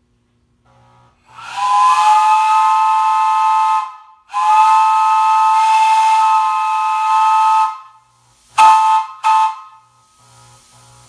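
Steam whistle blown on compressed air through a whistle valve: two long blasts, then two short toots. Several notes sound together as a chord over an air hiss, and the pitch scoops up as each long blast opens.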